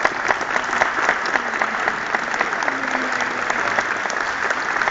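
Audience applauding steadily, with many individual claps standing out.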